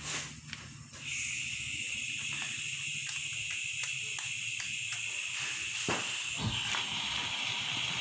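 Gas hissing steadily from the opened valve of an LPG cylinder, starting suddenly about a second in, with a few light clicks in the middle. About six seconds in the escaping gas is lit and goes on hissing as it burns in a flame at the valve.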